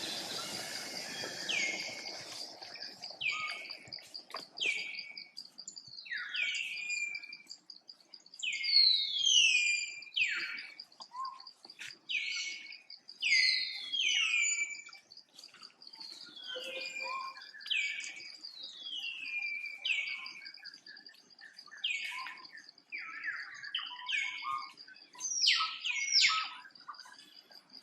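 Baby monkeys giving repeated high-pitched squeals that fall in pitch, one every second or two, with a steady high whine underneath.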